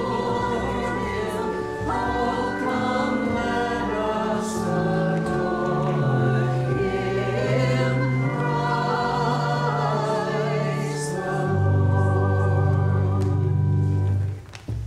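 Children's choir singing with instrumental accompaniment. The song ends on a long held chord that stops shortly before the end.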